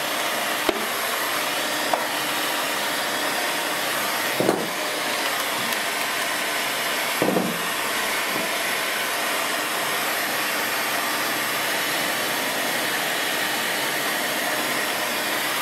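Stanley hot air gun running steadily, blowing hot air to heat-shrink a plastic bottle onto a canopy plug, with a few brief clicks and handling noises.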